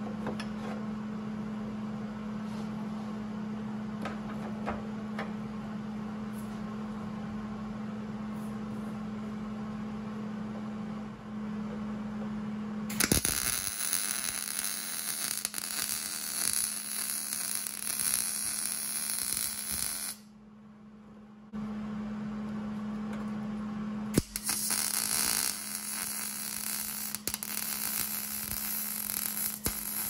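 A steady low hum for the first dozen seconds. Then a MIG welder's arc crackles and sizzles in two runs, the first from about 13 s for some seven seconds and the second from about 24 s to the end, with a short pause between. It is tacking steel angle-iron brackets onto the door's bolt work.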